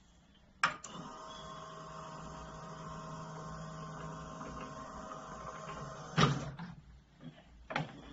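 Electric lift motor of a 24 V battery-powered reel lifter running with a steady hum for about five seconds as the clamp head lowers onto a paper roll. It starts with a sharp click and stops with a loud knock, and a second sharp click comes near the end.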